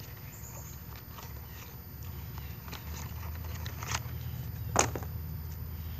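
A plastic dive-knife sheath and knife being handled, making a few light clicks and scrapes and then one sharp click near the end, over a low rumble.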